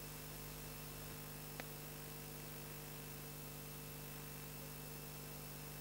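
Faint steady electrical hum with hiss, the noise of an old videotape soundtrack, with one small click about a second and a half in.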